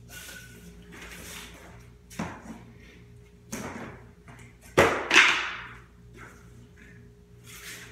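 Vinyl floor planks being handled: a few knocks and thuds, the loudest about five seconds in, followed by a short scraping slide as a plank is moved and set down.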